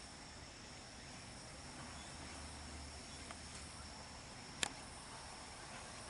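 Faint, steady high trill of insects over a soft outdoor hiss, with a single sharp click about four and a half seconds in.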